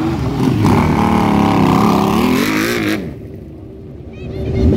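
Motorcycle engines being revved over and over, the pitch climbing and falling. About three seconds in the sound cuts off abruptly and the rest is much quieter.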